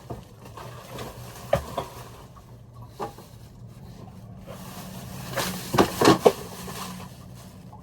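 Scattered knocks and thumps of things being shifted about while a mattress is laid down, with a few single knocks and then a cluster of louder thuds about five to six seconds in.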